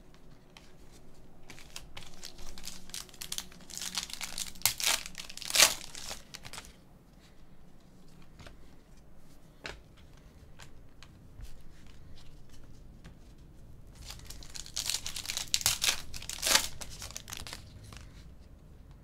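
Glossy trading cards being shuffled and handled, crinkling and rustling, with two louder spells of crinkling, one about four to six seconds in and another about fifteen to seventeen seconds in, and light card clicks between.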